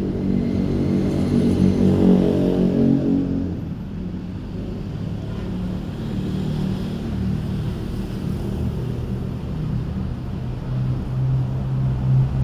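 An engine running, louder and higher for the first few seconds, then easing back to a steady, lower run.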